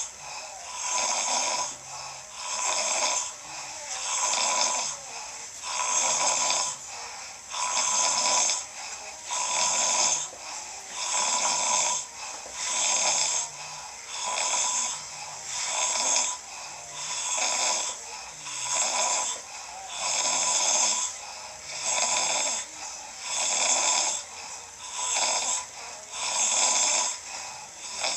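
A man snoring with a harsh, rasping snore, one snore about every two seconds in a steady rhythm.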